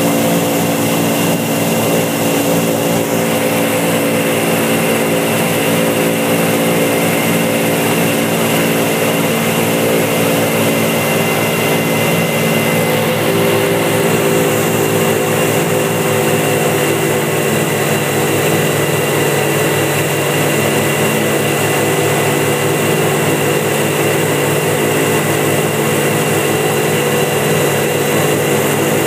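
Motor of a flat-bottom aluminium boat running steadily under way, a loud even drone that does not change pitch, with a rushing hiss over it.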